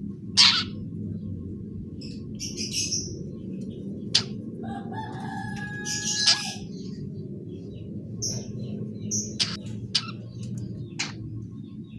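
Young long-tailed shrike chicks chattering while learning to sing: scattered short, sharp calls mixed with harsher scratchy bursts and a few brief whistled notes, over a steady low hum.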